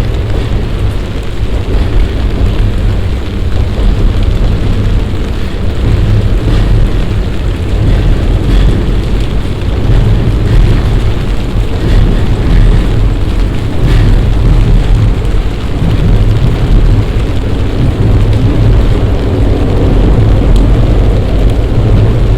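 Heavy summer downpour: a steady, loud wash of rain with a strong deep rumble underneath.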